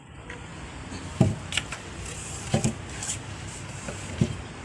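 A few dull knocks and a sharper click as a red painted wooden stool is handled and set on the floor.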